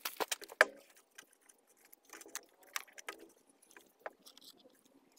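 Scattered clicks and light knocks of plastic and metal as a BMW i3 high-voltage battery module is gripped and handled in its pack, the loudest knock a little over half a second in.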